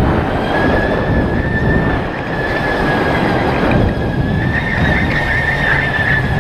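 Onboard sound of a Sodi RTX electric go-kart driving at speed: a steady, slightly wavering high whine over a dense low rumble of tyres and air.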